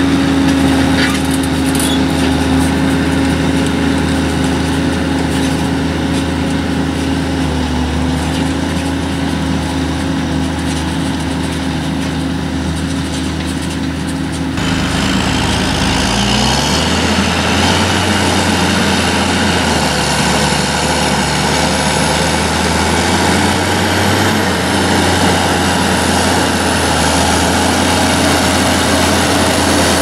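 New Holland TM 175 tractor's six-cylinder diesel engine running steadily under load while pulling a reversible plough through the field. About halfway through the sound changes suddenly to a fuller, nearer engine sound with a short rise in pitch.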